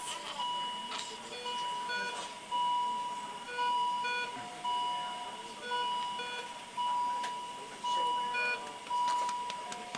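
Electronic beeping: a held tone pulsing about once a second, with short higher beeps among the pulses, like an electronic toy or alarm.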